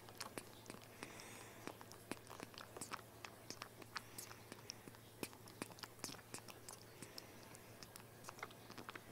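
Baby cinnamon capuchin monkey suckling from a bottle nipple: faint, irregular small wet clicks and smacks, several a second, over a low steady hum.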